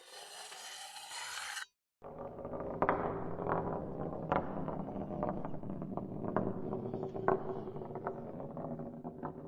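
A short hiss, a brief gap, then a long continuous scraping and rasping with irregular sharp clicks in it, like something being filed or ground against a rough surface.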